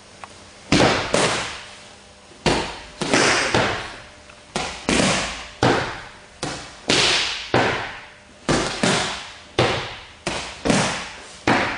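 Punches smacking into hand-held focus mitts: some twenty sharp slaps with a short echo, in loose pairs and overlapping runs of about two a second, from several pairs striking at once.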